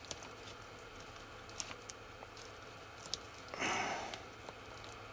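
Small handling sounds of fingers pressing softened polymorph plastic around a kite's spar joint: a few faint clicks and taps, and a short rustle about three and a half seconds in, over a faint steady hum.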